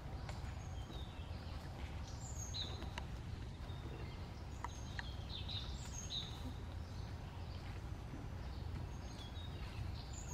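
Outdoor ambience: scattered short, high bird chirps over a steady low rumble.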